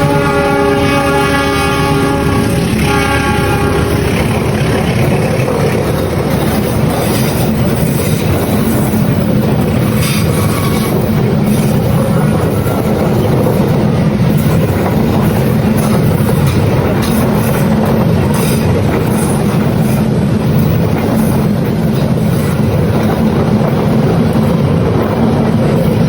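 Locomotive horn of the KA 43 Taksaka train sounding a chord that stops about three seconds in, followed by the steady rumble and wheel clatter of the long train running on the rails.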